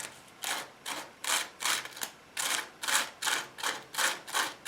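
Rapid back-and-forth rubbing strokes on the truck's radiator during a solder repair of a leak, about a dozen strokes at roughly two to three a second.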